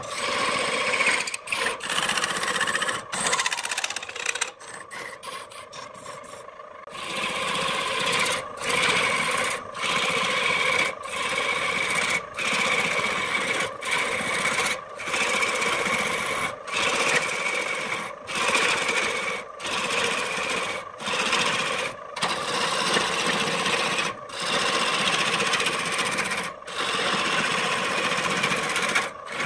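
A turning gouge cutting into a spinning wood vase blank on a wood lathe: a steady scraping cut over a steady pitched hum, broken by short gaps about every second and a half. The cut goes lighter for a couple of seconds about four seconds in.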